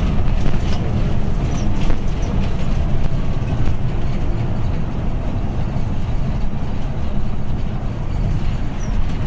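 Steady low rumble of a TNSTC express bus's engine and running gear, heard from inside the passenger cabin, with a few light clicks and rattles.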